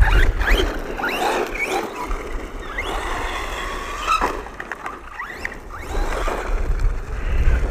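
1/10-scale HNR MARS electric RC monster truck driving on loose gravel. Its motor whine rises and falls as the throttle is worked, over the rough hiss of the tyres on the grit.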